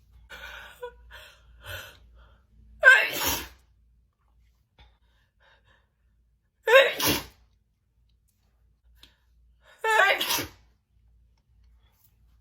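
A woman sneezing three times in a messy sneezing fit, the sneezes about three to four seconds apart. Short breathy sounds come before the first sneeze.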